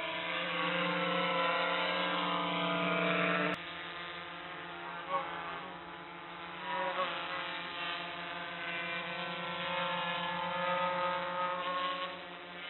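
Quadcopter drone hovering close by, its propellers giving a steady multi-tone whine whose pitch wavers up and down as it adjusts its position. The sound changes abruptly about three and a half seconds in.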